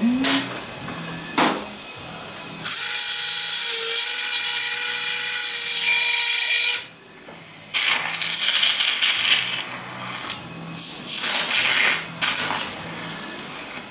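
High-speed surgical burr running steadily for about four seconds, a whine with hiss, as it grinds the dog's skull bone at the tumour margin. After a short pause, surgical suction hisses on and off as it draws up blood.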